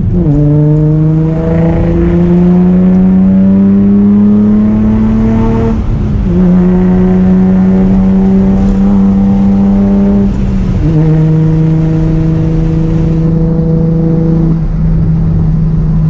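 Infiniti G35's 3.5-litre V6 pulling through the gears, heard from inside the cabin. The engine note climbs steadily and drops at a gear change right at the start, again about six seconds in and about eleven seconds in, then holds nearly level.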